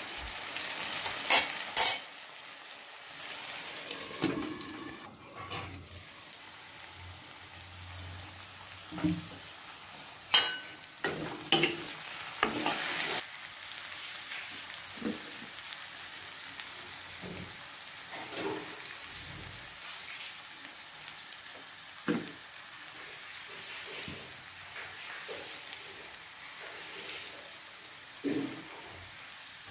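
Diced vegetables frying with a steady sizzle in a black kadhai (wok), with a metal ladle scraping and clacking against the pan at irregular moments as they are stirred, most often in the first few seconds and in a flurry about ten to thirteen seconds in.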